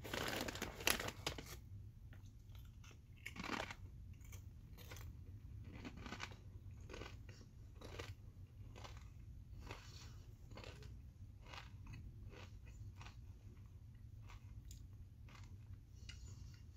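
Cape Cod potato chips being bitten and chewed close to the microphone: a few loud crunching bites in the first second and a half and another at about three and a half seconds, then a steady run of softer chewing crunches.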